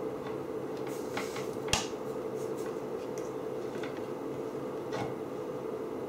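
A few small clicks and taps from handling things on a workbench, the sharpest about two seconds in, with fainter ticks after it, over a steady low hum.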